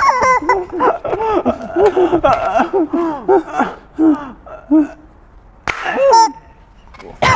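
High-pitched laughter and squealing from people, in short rising-and-falling bursts, with a loud outburst about six seconds in.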